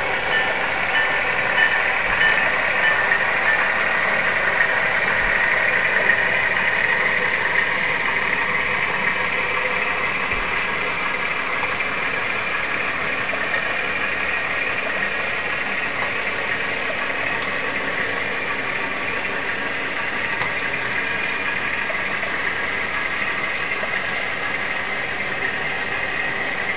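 Model railroad freight train rolling past: a steady mechanical running noise of wheels on track with an engine sound, easing slightly in level as the cars go by.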